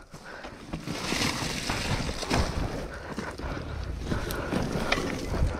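Wind rumbling on the microphone, with scattered knocks and rattles.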